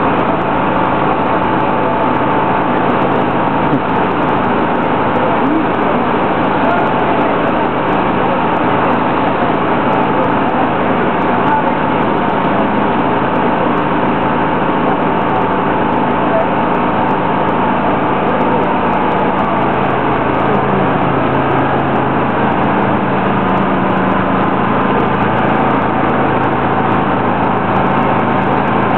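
Truck-mounted crane's engine running steadily while it holds and lowers a load, with a constant hum; a deeper hum grows stronger about two-thirds of the way through. Voices are mixed in.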